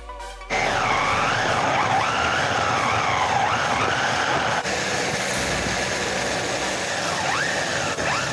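Small electric RC car motor whining, its pitch rising and falling again and again with the throttle, over a steady rush of tyre and wind noise from a camera riding on the car.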